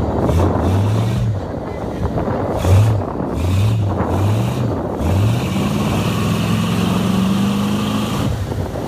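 Square-body Chevrolet Blazer's engine revving in several short throttle blips, then held at high revs for about three seconds, the revs creeping up as its large mud tyres spin in deep mud, before it drops off sharply near the end.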